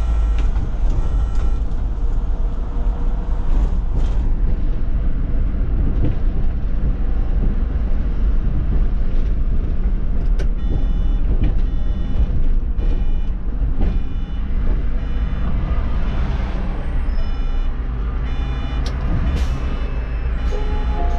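Solaris Urbino 18 articulated city bus driving, a steady low engine and road rumble heard from the cab. Short electronic beeps repeat in spells several times.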